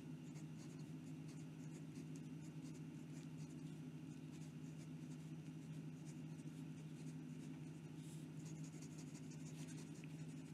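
Hero 616 fountain pen's fine hooded steel nib writing fast across lined notebook paper, a faint, rapid run of scratchy pen strokes over a steady low hum.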